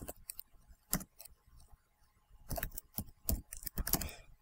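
Computer keyboard typing: irregular keystroke clicks, a pause of about a second, then a quicker run of keystrokes in the second half.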